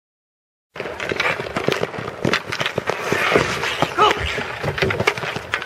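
Ball hockey game sounds starting after about a second of silence: a rapid, irregular clatter of sticks and ball on the court, with a short shout about four seconds in.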